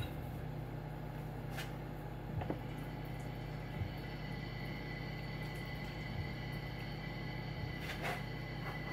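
Steady low hum of room tone with a few faint clicks and taps, a metal fork against a bowl as fettuccine is twirled.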